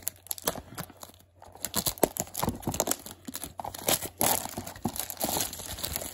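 Clear plastic shrink-wrap crinkling and tearing as it is peeled off a small cardboard box: a run of irregular crackles, sparse at first and thickening after about a second and a half.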